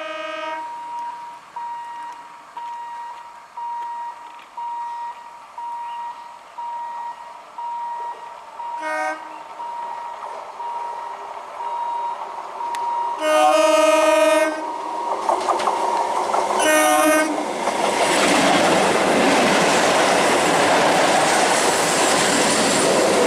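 Electric multiple unit (EMU) train horns: a short blast at the start, another about nine seconds in, a longer blast around thirteen seconds and a short one near seventeen seconds, while a short beep repeats a little faster than once a second through the first half. From about fifteen seconds a passing EMU train's rumble and wheel clatter builds and stays loud.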